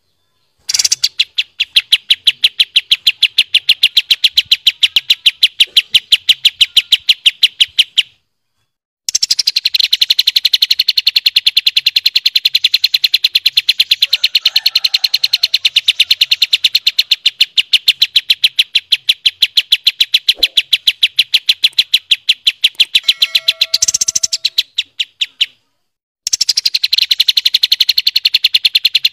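Kapas tembak songbird delivering long rapid-fire rolls of sharp, evenly repeated notes, about seven a second, in runs of several seconds with short breaks between them: the 'tembak' rapid-fire roll prized in Indonesian songbird contests.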